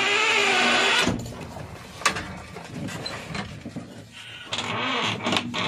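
Mechanical clatter in a JCB 3DX backhoe loader's cab as the door and its latch are worked, with one sharp click about two seconds in.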